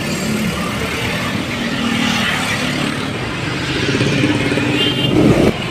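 Street traffic with a motor vehicle engine running close by; it grows louder near the end and then cuts off suddenly.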